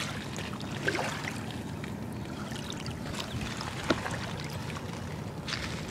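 Shallow stream water trickling and lapping at the bank, a steady low wash, with one short tap about four seconds in.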